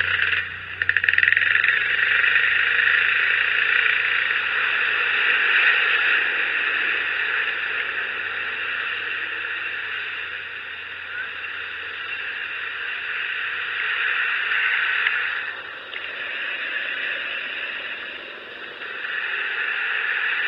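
Scooter riding along a flooded, wet road: a steady hiss of tyres on water, over a faint low engine hum that fades out. The hiss dips briefly twice near the end.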